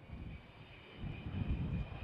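Avro Vulcan delta-wing bomber's jet engines in a flypast: a low rumble that swells about a second in, with a steady high whine over it.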